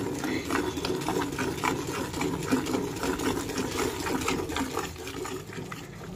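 Milk squirting from a cow's teats into a metal pail during hand milking: a quick, even rhythm of short squirts.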